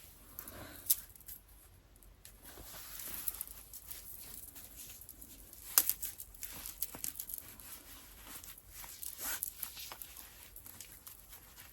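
Scarf fabric rustling and swishing close to the microphone as it is wrapped and tied over the head, with irregular scratchy rustles and a few sharp clicks, the loudest about a second in and again near the middle.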